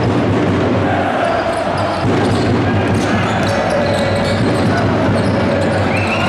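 Basketball game in a sports hall: steady crowd noise over the ball bouncing on the court, with a few brief high squeaks from players' shoes.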